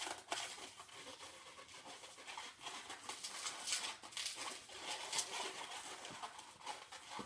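Inflated 260 latex modelling balloon rubbing and squeaking under the hands as it is twisted into small pinch twists: a string of short, irregular scratchy rubs.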